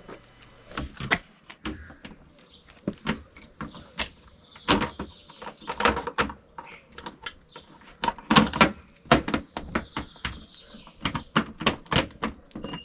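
Irregular clicks and knocks of a plastic Nissan Qashqai boot lid handle and its bolts being handled and pressed into place against the tailgate panel.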